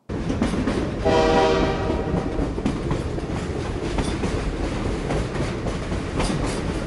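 A train running on the rails, with a steady rumble and clicks from the rail joints and one short horn blast about a second in. The sound starts suddenly.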